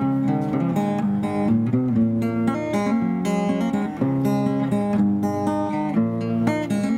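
Acoustic guitar being strummed, the chords changing every second or so.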